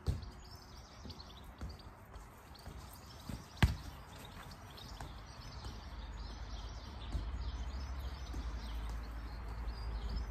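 Football being struck and touched with the foot on a grass lawn: a thud at the start, a sharp smack about three and a half seconds in, and lighter touches later. Birds chirp in the background, and a low rumble builds from about halfway.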